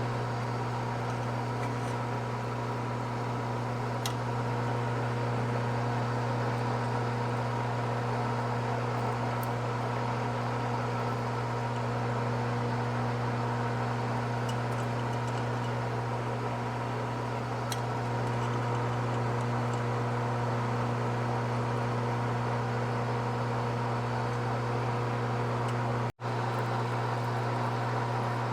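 Electric drilling machine's motor running steadily with a low hum, as a bit bores a hole through a motorcycle swing arm's foot peg boss. The sound cuts out for an instant near the end.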